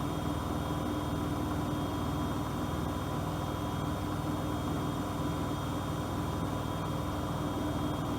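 Bosch WFP3231 washing machine running at a steady speed: an even motor hum with a steady whine over a constant noise.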